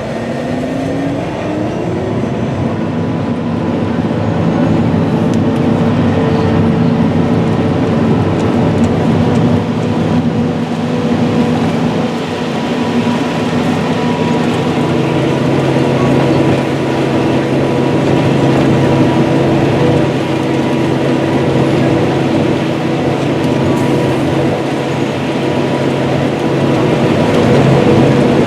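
Big diesel farm machinery working a corn silage harvest: heavy engines running under load over a dense, steady rushing noise, with one engine rising in pitch over the first couple of seconds.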